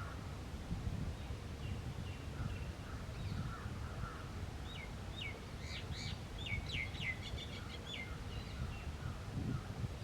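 A burst of rapid bird calls, a quick string of short notes, comes about halfway through, with fainter calls around it. A steady low rumble runs underneath.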